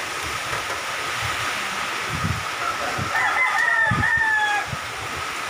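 Steady rush of typhoon wind and rain, with low gusts buffeting the microphone. A rooster crows once about three seconds in, a call of under two seconds.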